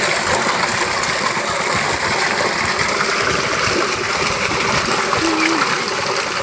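Water gushing steadily from a large PVC pipe outlet and splashing into a concrete water tank.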